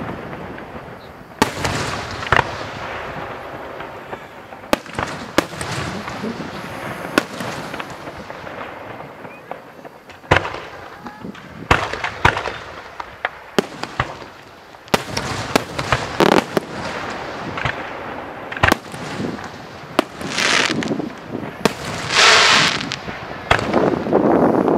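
Fireworks going off: a string of sharp bangs at irregular intervals, each trailing a brief echo, with two longer hissing bursts near the end.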